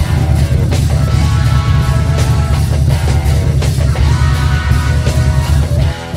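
Rock music with a heavy, steady bass; the bass drops away near the end.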